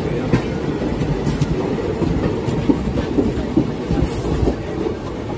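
Indian passenger train coaches running past at close range: a steady rumble of wheels on the track with irregular clatter and knocks over the rail joints, and a brief high hiss about four seconds in.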